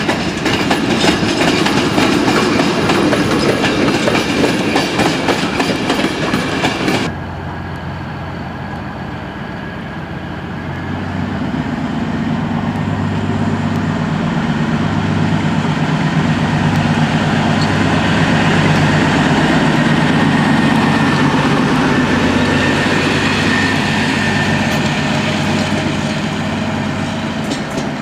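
Passenger coaches of an express train hauled by an electric locomotive clattering past over rail joints, cut off abruptly about seven seconds in. Then a class 850 diesel railcar's engine runs as a steady low drone while the railcar shunts, growing louder toward the middle and easing slightly near the end.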